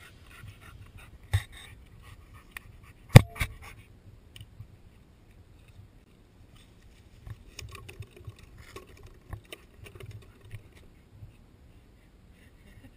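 A black Labrador nosing at a camera close to the ground: sharp knocks on the camera, the loudest about three seconds in, then light clicking and the rattle of its metal chain collar and tag.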